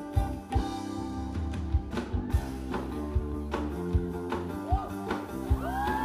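A live rock band playing: guitars over a drum beat with regular kick-drum hits. Near the end the crowd starts whooping.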